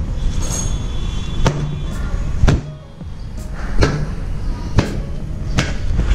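A handful of sharp knocks and bumps, roughly one a second, as an action camera is handled and moved about over a motorcycle, over a low rumble of handling noise.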